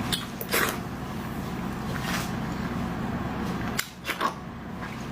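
Several short clicks and smacks of eating, over a steady low hum.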